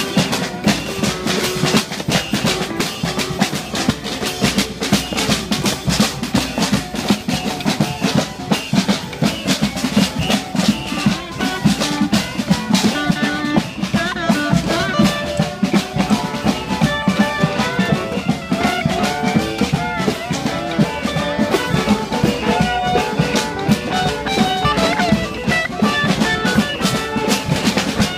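Marching band playing while on the move: steady, busy drumming, with pitched instruments carrying a tune that stands out more clearly from about halfway through.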